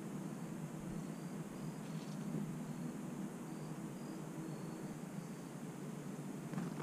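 Crickets chirping faintly in short, high, irregular chirps over a steady low outdoor hum, with a couple of faint clicks.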